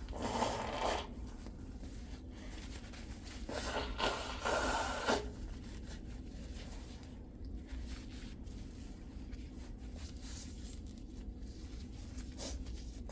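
Nose blowing into a tissue: a short blow at the start and a longer one about four seconds in, followed by faint rubbing.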